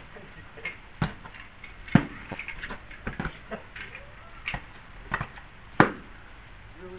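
Padded LARP weapons striking one another in a mock fight: irregular sharp thwacks, about seven in all, the loudest about two and six seconds in.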